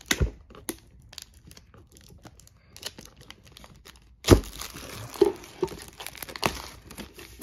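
Plastic shrink-wrap being picked at and peeled off a cardboard box. Scattered small crackles come first, then a sharp rip about four seconds in, followed by continuous crinkling.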